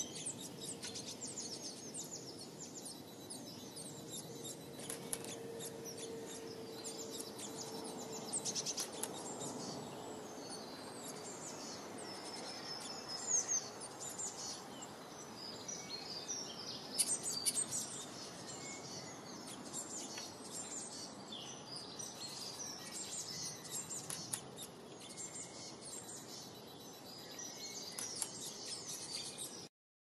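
Several songbirds chirping and singing together, short high calls and trills overlapping one another, over a steady low background hiss; it all cuts off abruptly near the end.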